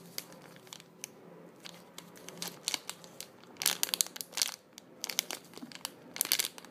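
Clear plastic packaging crinkling as a squishy toy is handled and squeezed inside its bag. The crackles are irregular, with louder clusters about halfway through and near the end.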